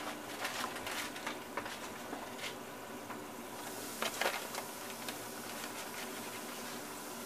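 Hot cooking oil in a stovetop pot crackles lightly. About four seconds in, a batch of coated chicken gizzards goes in and the oil breaks into steady frying and sizzling.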